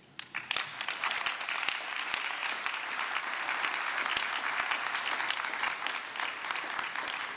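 Audience applauding: dense clapping that starts abruptly and holds steady, thinning slightly near the end.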